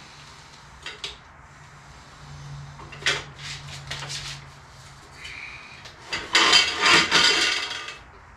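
Metal knocks, scraping and rattling as a Yamaha Road Star's front fork and lower triple tree are worked up into the frame's steering head onto freshly fitted bearing races. Short knocks come about one and three seconds in, and the loudest, longest bout of scraping and rattling comes near the end.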